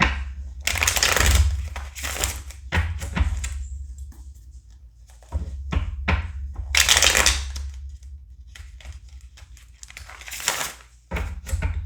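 Tarot cards being handled and shuffled on a desk: several rustling bursts of a second or two, with low knocks as the cards and hands meet the desk.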